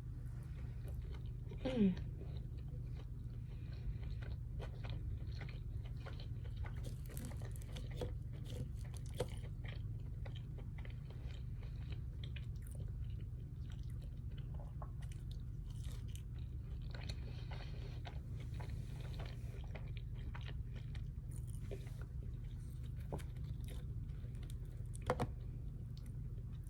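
Close-up chewing and biting of food, with small crunches and wet mouth clicks over a steady low hum. A short sound falling in pitch about two seconds in, and a sharp click near the end.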